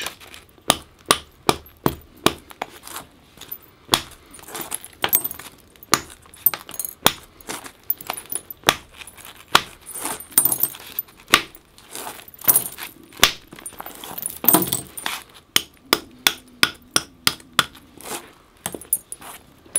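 Antler hammer striking a flint nodule in a run of sharp, irregular knocks, about one to two a second, as flakes are knocked off to flatten the underside of a flint adze.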